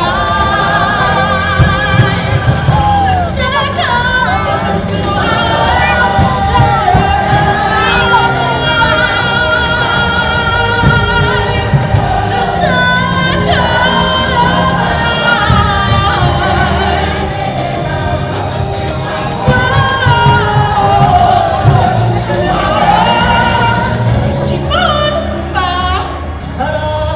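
Show music over a loud sound system: voices singing long held notes, choir-like, over a full backing of low drums and bass.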